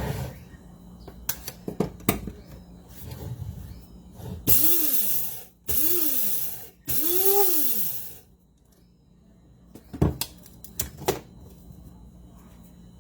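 Small electric blade grinder pulsed three times on whole coriander and cumin seeds: each run a loud whirr whose motor pitch rises as it spins up and falls as it coasts down after release. Scattered knocks and clicks come before and after the runs.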